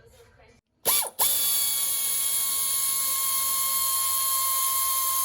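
Power ratchet starting about a second in, stuttering briefly, then running at a steady high whine with a hiss over it, as it undoes the stock mufflers' bolts.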